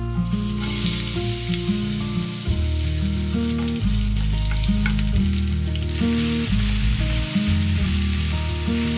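Food sizzling as it fries in hot oil in a pan, getting louder about a third of a second in, under background music with steady bass notes.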